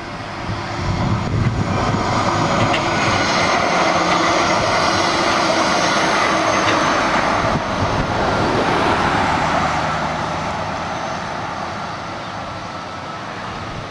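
Bombardier Flexity 2 light-rail tram passing close by: the sound of its running grows about a second in, with steady whining tones from its drive, stays loud through the middle and fades away over the last few seconds.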